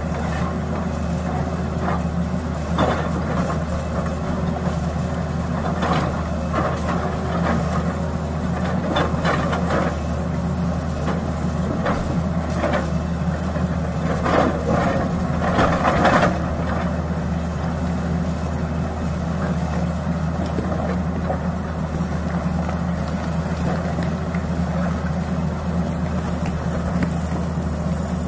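Tata Hitachi crawler excavator's diesel engine running steadily under load while the bucket digs rocky ground, with scraping and clattering of rock and metal several times, loudest about halfway through.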